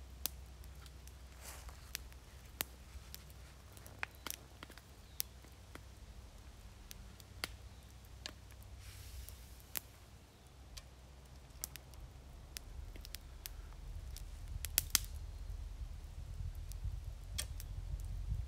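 Wood campfire crackling with scattered, irregular sharp pops, along with light handling noise as a frying pan is moved over the fire. A low rumble grows stronger in the second half.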